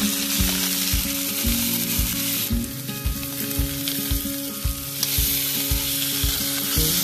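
Beef short ribs searing in hot oil in a stainless steel frying pan: a loud, steady sizzle. Its level shifts suddenly about two and a half and five seconds in.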